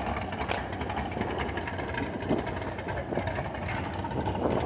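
An engine running steadily, with a fast, even beat.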